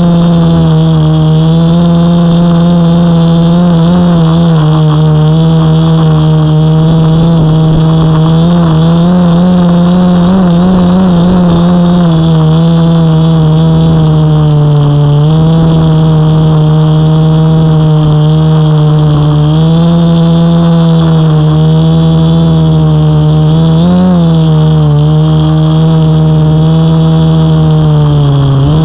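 Quadcopter drone's electric motors and propellers running with a loud, steady hum, heard from the drone's own onboard camera. The pitch rises and falls a little several times as the throttle changes.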